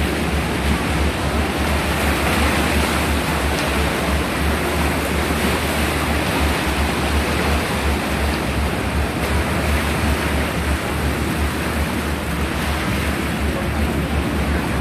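Sea water rushing and splashing past a moving ferry, a steady loud wash with a deep, fluttering rumble of wind on the microphone.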